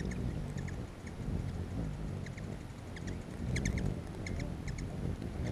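Hummingbirds buzzing around a feeder: a low, uneven hum of wingbeats with short, sharp chip calls in quick clusters, the loudest burst of chips a little past halfway, as the birds chase one another. Likened to a bumblebee swarm.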